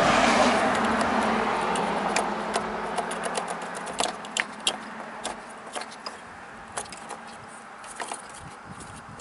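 A passing vehicle's road noise swells and then fades over the first few seconds. Throughout the rest, many small sharp clicks and rattles come from hands working a wiring harness and plastic connectors at a car's under-hood fuse and relay box.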